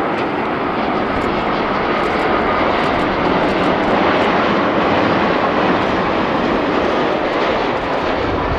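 Boeing 787-8 airliner's GEnx-1B turbofan engines at approach power, a loud steady jet rush as it flies low past on final approach, just before touchdown.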